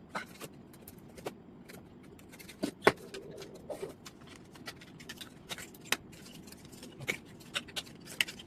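Hands working at a phone's retail box, with scattered clicks, taps and scrapes of cardboard and plastic packaging being pried open. The loudest is a sharp knock about three seconds in.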